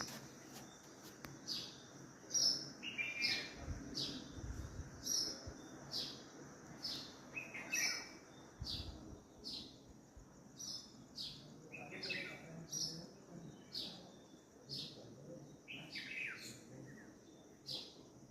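Birds chirping: short, high chirps repeated about once or twice a second, with a lower, falling call every few seconds.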